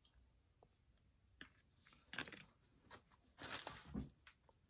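Faint eating sounds: a person chewing a mouthful of chicken lo mein, in a few short wet bursts that grow loudest near the end.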